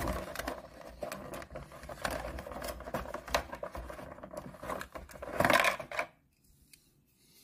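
Thin clear plastic blister tray crackling and clicking as a die-cast toy car is pried out of it, with a louder crackle about five and a half seconds in as the car comes free; the sound stops about six seconds in.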